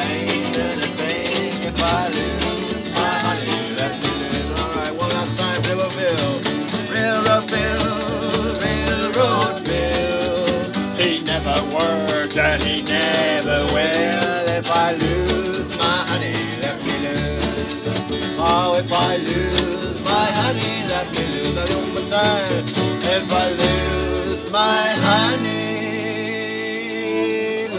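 Acoustic string band playing a traditional country-blues tune: strummed acoustic guitars, upright double bass and a pizza box played as a drum keep a steady beat under a man singing. About three seconds before the end the beat stops and a final chord is held as the song closes.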